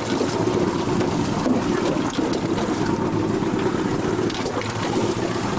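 Ski boat's outboard motors running steadily at low speed, a continuous low drone.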